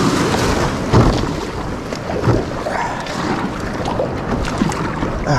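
Small waves breaking and water splashing against a sit-on-top kayak as it is paddled out through the surf, with a loud splash about a second in and another soon after.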